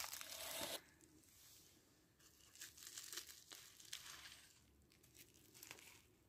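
Bubble wrap crinkling as it is handled, strongest in the first second, followed by softer, scattered crinkles and rustles of packaging.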